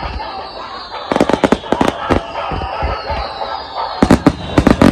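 Aerial fireworks finale: rapid volleys of shell bursts with crackling, in two clusters, one about a second in and another near the end.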